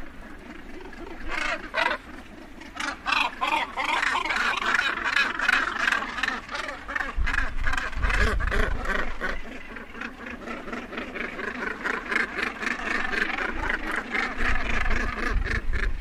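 Northern gannets calling at a colony: a dense, rapid run of harsh, croaking calls from several birds, beginning about a second in and carrying on without a break. A low rumble rises under the calls about halfway through and again near the end.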